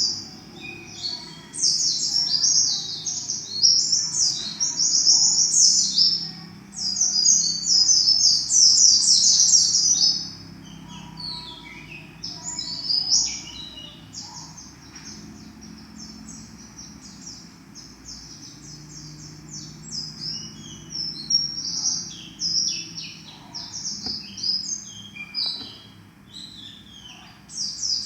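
Captive white-eye (pleci) singing a rapid, high-pitched twittering song: a house-raised bird still learning its song. It is loud and continuous for the first ten seconds or so, then comes in softer, scattered phrases, and ends with a loud burst.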